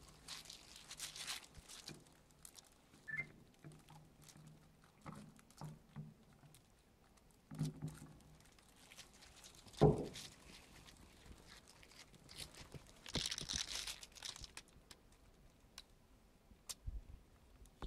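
Faint scattered clicks and rustles of a plastic cup and plastic bottle being handled as a yeast mixture is poured into the bottle, with a louder knock about halfway through.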